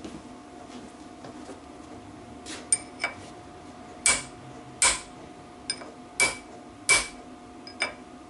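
Hammer tapping a steel punch: about eight sharp, ringing metal blows in an uneven run starting a few seconds in. They drive a part home on a BSA B25 Starfire crankshaft during assembly.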